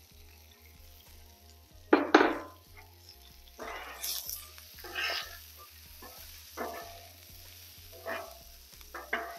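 Diced potatoes, onion and jalapeño frying on a hot steel Blackstone flat-top griddle, sizzling while two metal spatulas scrape under them and toss them. The scrapes come one after another, and the loudest, a sharp double scrape, falls about two seconds in.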